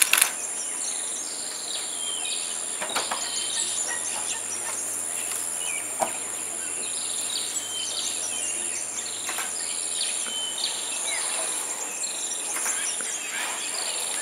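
Tropical forest ambience: a steady high-pitched insect drone with frequent short bird chirps, and a few sharp knocks, the loudest at the very start.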